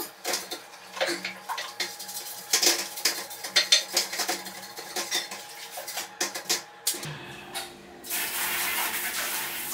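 Plastic toilet brush scrubbing and knocking against the inside of a ceramic toilet bowl in short scrapes and clicks. About eight seconds in, a steady hiss of water starts as the hand-held bidet sprayer rinses the bowl.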